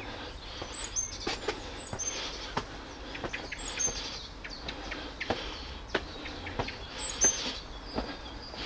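Footsteps climbing concrete stairs, a short knock about every two-thirds of a second, with birds chirping a few times.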